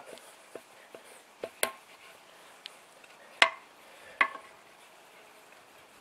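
Steel tyre levers clinking against an alloy wheel rim as a lever is worked under the tyre bead: a few scattered metallic taps, the loudest two about three and a half and four seconds in, each with a brief ring.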